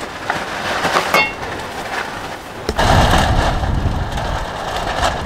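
Pop-up canopy shelter battered by strong wind, with a few sharp knocks from it in the first second or so. About two and a half seconds in, a steady rush of strong wind on the microphone takes over.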